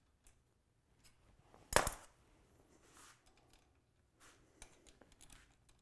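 Hand-handling noises of hardware being fitted to a snowmobile suspension rail: one sharp clack a little under two seconds in, followed by a few lighter taps and clicks.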